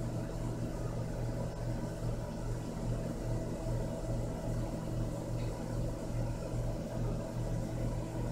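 Steady low hum, faintly pulsing, with nothing else standing out.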